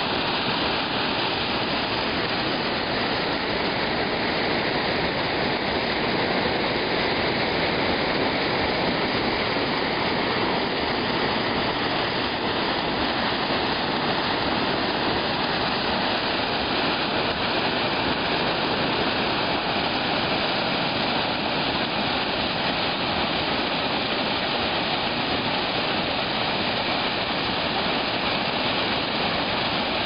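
Waterfall: whitewater pouring over rock ledges in a steady, loud rush of water.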